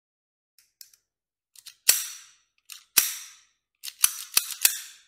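Metallic clicks and clacks from a Raptor .32 bore pistol as its slide and parts are worked by hand: a few faint clicks, then two sharp clacks about a second apart, then a quick run of clacks near the end.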